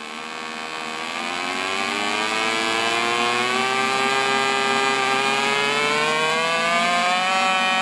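AC TIG welding arc on aluminum from an AHP AlphaTIG 200X, a steady buzz that rises in pitch as the AC frequency is turned up from 40 Hz toward 200 Hz. It grows louder over the first few seconds, then holds.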